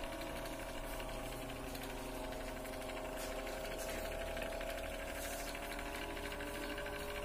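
Electric stand fan running, a steady motor hum with a constant tone, its blades spinning again now that the fan's capacitor has been replaced.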